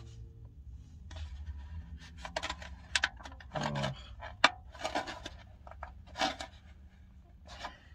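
Aluminium foil lid being pried and peeled off the rim of a fibre takeout bowl: irregular crinkling and crackling of foil with scattered sharp clicks, over a low steady hum.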